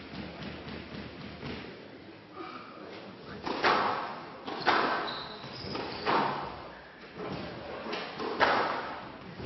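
Squash rally: the ball cracking off rackets and the court walls about once a second, starting about three and a half seconds in, with softer taps before it.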